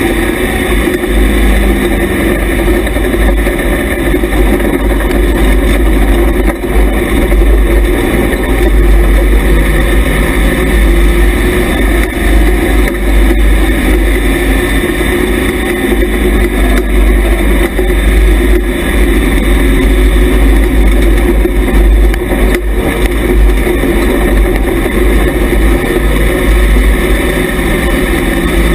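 IMCA Hobby Stock dirt-track race car's engine running hard at racing speed, heard loud from inside the car, with a heavy low rumble.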